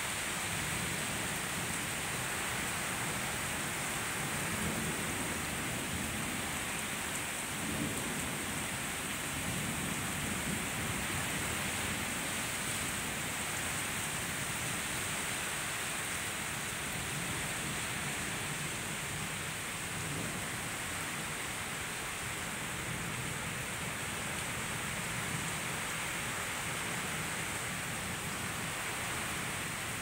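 Rain falling steadily in a night thunderstorm, with low rumbles of thunder swelling and fading several times.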